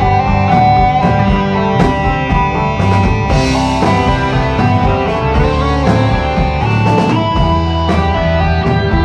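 Live rock band playing an instrumental passage: electric guitars and bass guitar over a drum kit.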